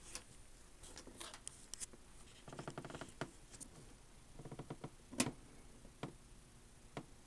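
Quiet scattered light clicks, with two short stretches of rapid rattling ticks and one sharper click about five seconds in.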